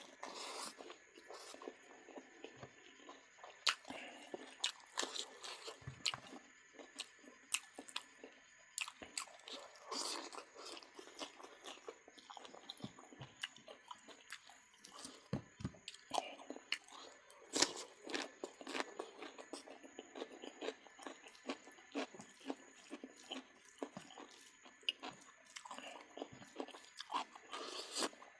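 A person chewing and biting into cooked duck, with irregular sharp crunches and mouth clicks.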